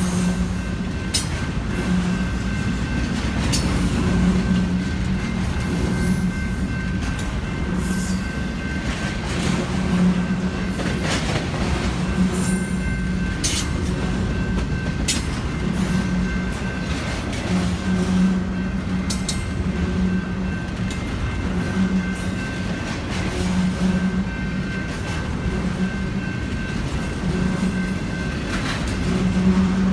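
Freight train cars rolling past with a steady rumble, wheels clicking irregularly over rail joints, and a faint steady high squeal from the wheels.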